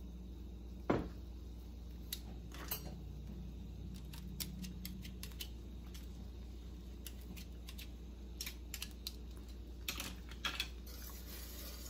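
Light scattered clicks and taps of a fork scraping sticky honey off a measuring spoon over a steel pan, with a single louder knock about a second in, over a steady low hum.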